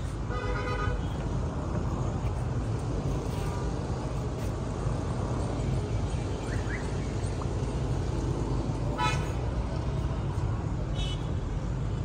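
Vehicle horns toot briefly, about half a second in and again about nine seconds in, over a steady low rumble.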